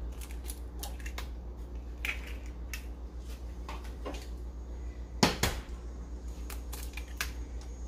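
Eggs tapped and cracked against the rim of a stainless steel stand-mixer bowl: a few sharp clicks and taps, the loudest pair about five seconds in, over a low steady hum.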